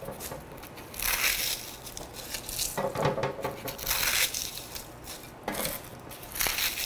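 Crisp baked puff pastry being broken apart by hand: several separate bursts of dry crunching and crackling. The pastry is baked crisp all the way through.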